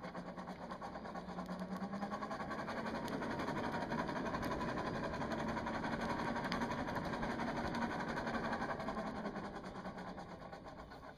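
Coal forge's air blower running, driving air up through the burning coal: a steady whirring hum and rush that builds over the first few seconds and dies down near the end.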